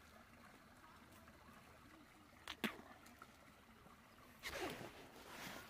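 Near silence, broken by one brief click about two and a half seconds in and a short, soft rustling noise near the end.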